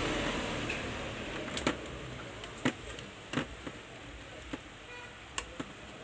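Handling noise from a plastic siren horn speaker and its wiring being picked up and moved: about six scattered light knocks and clicks over a faint steady hiss that fades during the first second or two.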